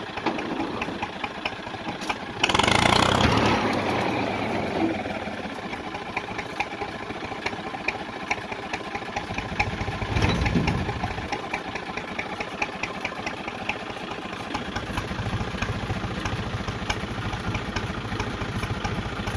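Engine of a Vietnamese xe cày farm truck running steadily with a fast ticking beat. About two to four seconds in there is a louder rushing surge, and a smaller one near the middle.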